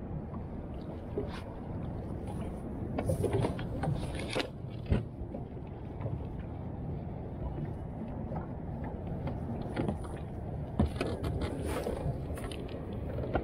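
Lake water chopping against the hull of a small boat, with wind on the microphone. Sharp knocks and clatters come a few seconds in and again near the end, where hands handle the camera mount.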